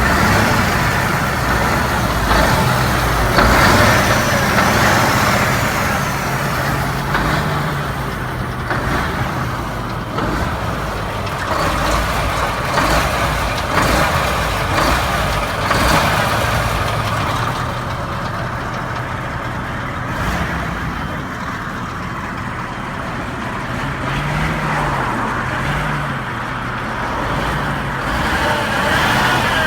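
MAN TGX 18.680's V8 diesel engine running, its revs rising and falling, with two quick rev blips near the end. The turbo whistles, rising and then falling about three seconds in.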